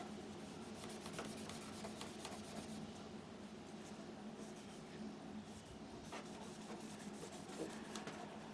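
Magic eraser scrubbing scuff marks off the plastic front bezel of a CRT monitor: a faint, steady rubbing with light scattered clicks.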